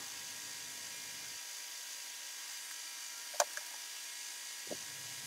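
Low steady background hiss with a faint electrical hum, broken by a single faint click about three and a half seconds in.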